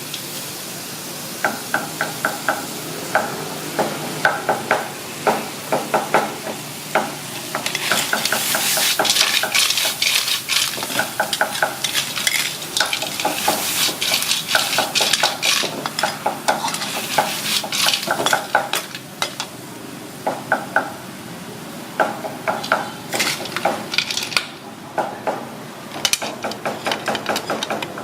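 A metal spatula clinks and scrapes against a wok in quick runs of ringing strikes during stir-frying. Food sizzles in the hot pan, loudest through the middle of the stretch.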